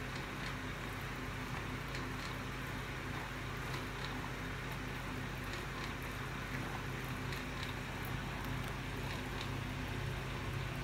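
Small electric desk fan running steadily with a low hum and a rush of air, blowing over boiled soybeans to dry and cool them. Faint scattered clicks of a plastic spatula stirring the beans in a plastic colander.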